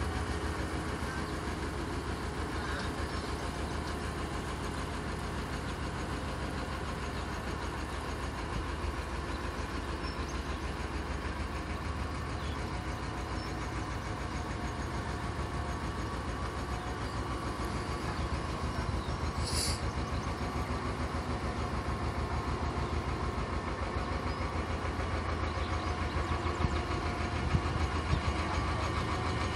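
A narrowboat's National 2DM two-cylinder diesel engine running steadily with an even exhaust beat.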